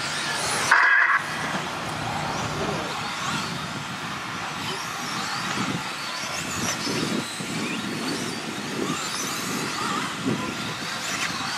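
Radio-controlled 1/10-scale truggies racing on a dirt track, their motors rising and falling in pitch as they accelerate and brake. A short electronic beep sounds about a second in.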